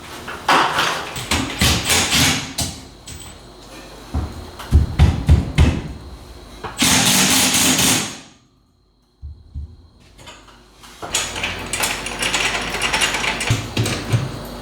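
Hand-tool and hardware noise from electrical conduit work: clicking and ratcheting, a quick run of heavy knocks, and a loud burst of noise. The sound drops out completely for about a second midway.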